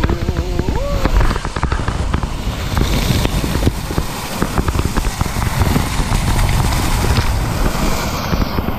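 Water rushing and splashing around an inner tube sliding down a water slide, with the crackle of spray hitting the action camera. A short rising cry about a second in.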